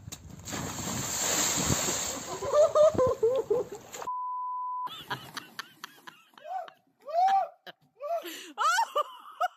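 A loud splash and rush of muddy water as a body lands in it, with voices crying out over it; then a steady one-tone censor bleep lasting under a second; then bursts of excited, rising-and-falling voices.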